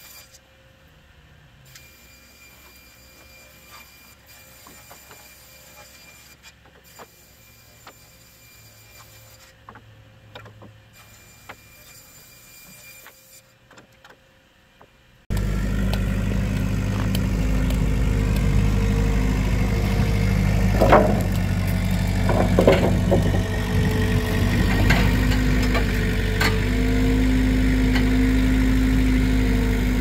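Faint scattered clicks and ticks, then, about halfway through, a vehicle engine running steadily cuts in abruptly and much louder, with a few knocks and rattles over it.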